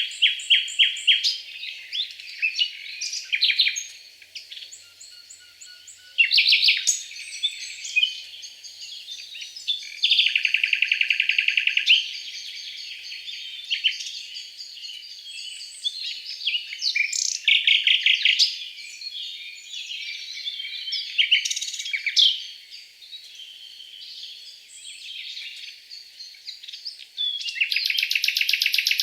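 Several songbirds singing and calling in a forest, a busy mix of high chirps and short phrases. A fast rattling trill runs for about two seconds some ten seconds in, and another loud, very high trill comes near the end.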